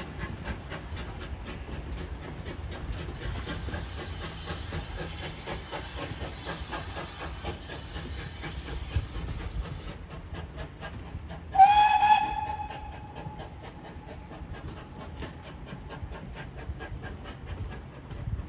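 Steam locomotive hauling a train of coaches away, its exhaust beating in a steady rhythm with a hiss of steam for several seconds. A single steam whistle blast sounds about twelve seconds in, the loudest sound, and trails off over the next second.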